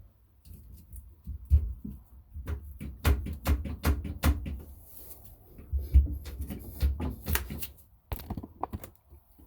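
Irregular clicks, knocks and thumps of metal and plastic plumbing parts being handled and fitted under a bathroom sink. The sounds come thickest in the middle and trail off into a few last clicks near the end.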